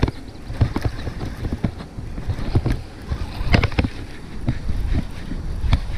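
Wind rumbling on the microphone, with scattered clicks and knocks from a baitcasting rod and reel being handled right by the microphone.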